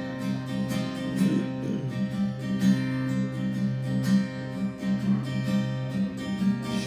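Acoustic guitar played solo in a steady, even rhythm: the instrumental introduction of a folk song, with no voice yet.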